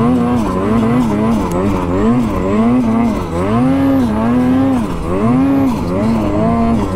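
Mountain snowmobile engine revving up and down over and over, about once a second, as the throttle is worked to keep the sled moving through deep powder.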